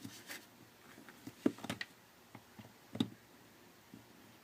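A few small clicks and light scrapes of a pry tool working at the edge of a Nokia Lumia 1020's housing, the sharpest clicks about a second and a half in and again about three seconds in.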